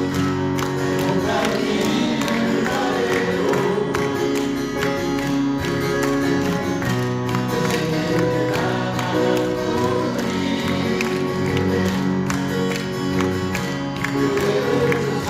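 Live acoustic folk music: strummed and picked acoustic guitars with sustained held notes, played through a passage of the song where no lyric words are picked out.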